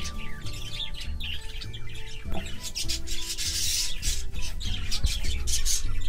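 A quick run of short, scratchy cockatiel calls, with a denser hissing stretch about halfway through, over background music with steady low held notes.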